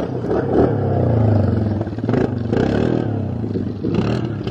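Yamaha Grizzly 700 ATV's single-cylinder four-stroke engine revving hard under load as the quad wheelies, the pitch rising and falling with the throttle. There are a few short clattering knocks around the middle and near the end.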